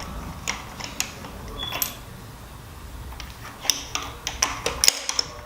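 Scattered light clicks and taps of engine parts and tools being handled, with a quick flurry about four to five seconds in.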